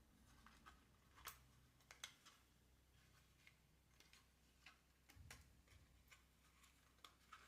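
Faint, irregular plastic clicks and soft knocks from handling a DJI Mini 4 Pro drone as its protective cover is taken off.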